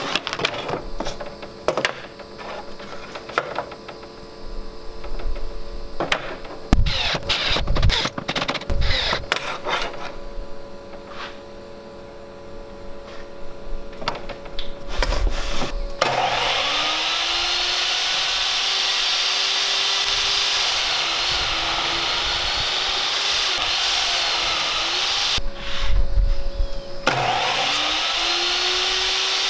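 Portable table saw's motor spinning up with a rising whine and running loud and steady, its pitch dipping as an MDF panel is fed through the blade. It breaks off briefly near the end and spins up again. Before the saw starts there are scattered knocks and clicks of the fence and tools being handled.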